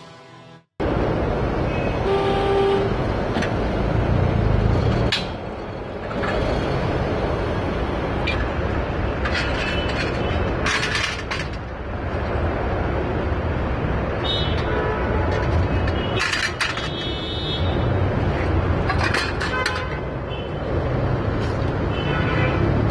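Street traffic: a steady low rumble of vehicles with a short car-horn toot about two seconds in and more brief horn-like tones later.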